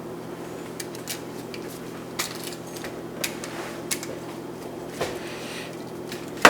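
Light metallic clicks and taps of a screwdriver and copper wire on a GFCI receptacle's terminal screws as the ground wire is fastened, over a steady low hum. Right at the end a louder clatter starts as the screwdriver is dropped.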